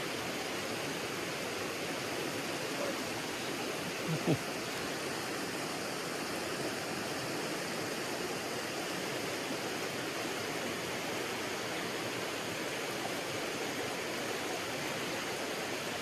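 Steady rush of a mountain trout stream pouring over rock ledges in a small cascade. A brief rising tone sounds once about four seconds in.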